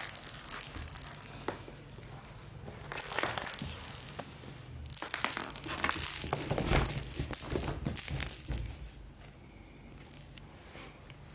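Small plastic cat ball toy rattling in bursts as it is batted and rolls across a tile floor: once at the start, again about three seconds in, and longest from about five to eight seconds in.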